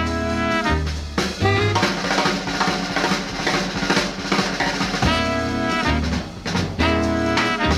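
Big-band jazz recording: the horn section holds chords at the start, then the drums play a busy snare-and-bass-drum passage before the horns come back in with held chords about five seconds in.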